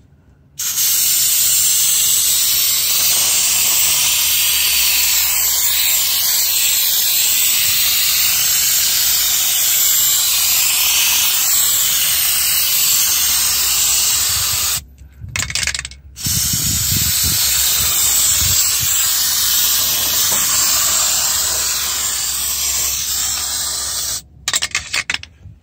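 Aerosol can of rubberized undercoating spraying in two long, steady hisses, the first about 14 seconds, the second about 8, with a short pause between them.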